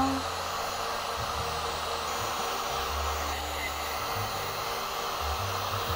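Heat gun blowing hot air steadily onto plastic shrink film wrapped around a bath bomb, shrinking the film tight as the ball is turned.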